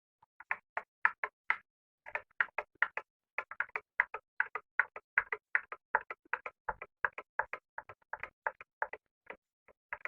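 Spoon stirring a cup of hot milk, clinking against the sides of the cup about four times a second, with a short break about two seconds in.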